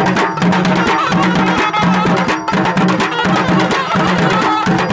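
Traditional folk drumming: rapid, dense drum strokes in a fast rhythm, over a low tone that breaks off and returns about twice a second.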